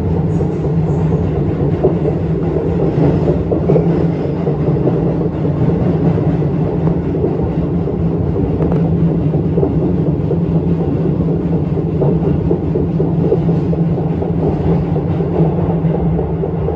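Electric commuter train running along the line, heard from aboard: a steady rumble of wheels on rails and running gear.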